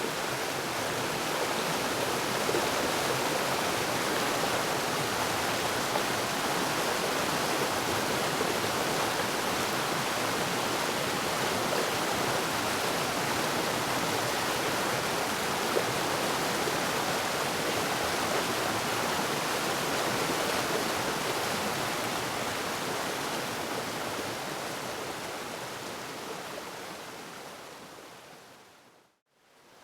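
Waterfall rushing steadily, an even roar of falling water that fades away near the end.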